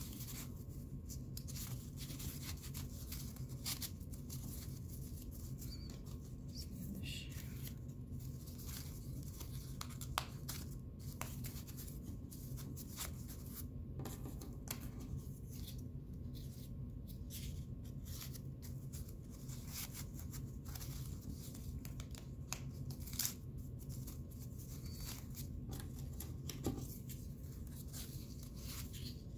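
Strips of thin cardboard from paper-towel and toilet-paper rolls rustling and scraping against each other as they are threaded through a woven basket, with scattered small clicks, over a low steady hum.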